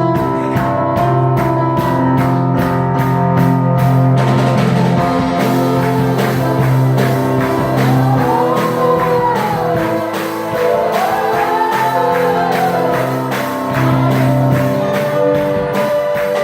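Music with a steady beat and a singing voice gliding up and down partway through.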